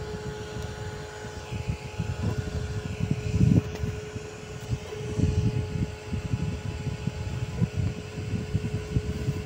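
Atomstack A5 Pro diode laser engraver running an engraving job: a steady fan hum over a low, uneven noise of moving air, swelling briefly a few times.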